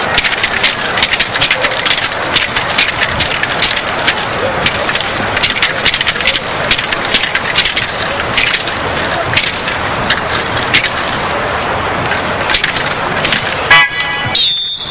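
Rapid, repeated sharp cracks of a decoy's split-bamboo stick being struck and rattled while a dog holds its bite on the padded suit. Near the end, a brief high steady tone sounds.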